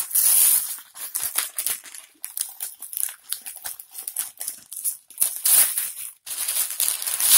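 Newspaper wrapping crinkling and tearing as it is pulled open by hand, a run of crackly rustles with louder bursts just after the start and near the end.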